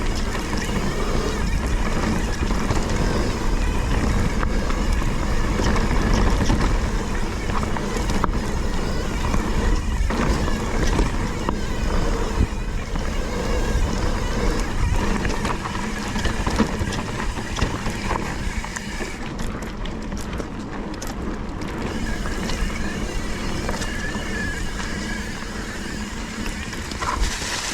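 Wind rushing over an action camera's microphone and a mountain bike rattling and crunching over a rough dirt trail while riding, a steady dense noise with many small knocks.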